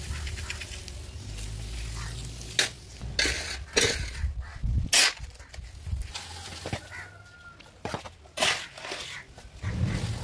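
A hand trowel scraping and knocking against a pan and a plastic bucket while cement is scooped and stirred into water, heard as a handful of sharp scrapes and clunks, with a steady low rumble at the start and again near the end.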